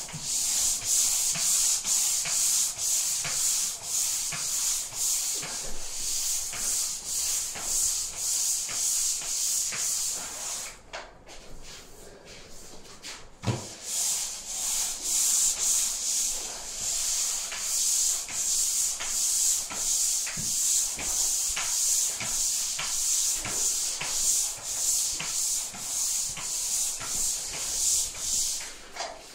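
Pole sander worked back and forth across a ceiling, a rhythmic rasping scrape at about two strokes a second. It stops for a couple of seconds partway through, then carries on.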